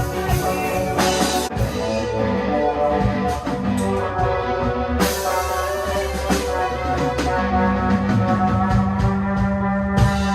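Rock band playing a full-band passage: electric guitar, bass guitar and drum kit, with several cymbal crashes.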